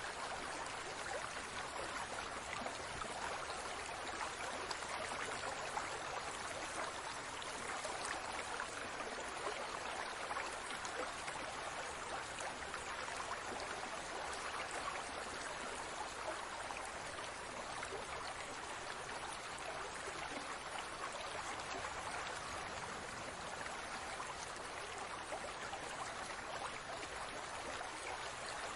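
Aquarium water bubbling and trickling steadily, a dense patter of small bubbles breaking at the surface.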